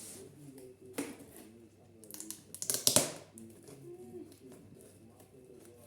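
A parcel being handled and opened: clicks and the rustle of packaging, with one louder burst of crinkling or tearing about three seconds in.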